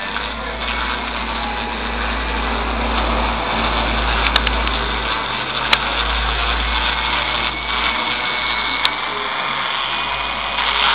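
A power tool runs steadily while fossils are being cleaned, with a few sharp clicks.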